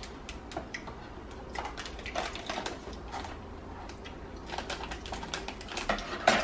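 Crinkling and scattered clicks from a clear plastic bag of chocolate balls being handled and cut open, with cardboard packaging handled alongside.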